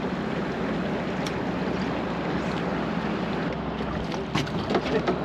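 Steady hum of a sportfishing boat's engine under wind and water noise, with a few sharp clicks or knocks near the end.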